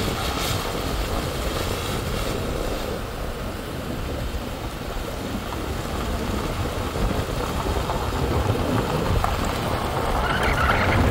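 Vehicle driving: a steady rumble of engine and road noise with no break.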